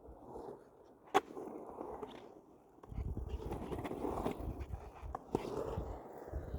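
Skateboard: a sharp clack about a second in, then the rough rumble of the board's wheels rolling or grinding along a surface from about three seconds in, with another click near the end.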